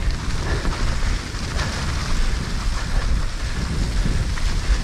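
Mountain bike riding down a dirt trail, heard from a helmet-mounted action camera: wind rushing over the microphone gives a steady rumble, with the patter and rattle of tyres and bike over the ground.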